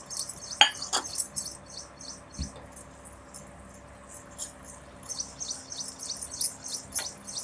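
Cashews frying in hot ghee in a small steel pan: irregular high-pitched crackling and spitting, with a few sharp clinks of a steel spoon stirring against the pan.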